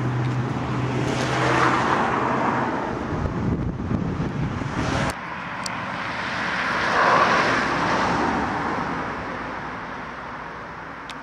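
Road traffic: a vehicle passing close by, its tyre and engine noise swelling and then cutting off suddenly about five seconds in, followed by a second vehicle that rises to a peak around seven seconds and fades away.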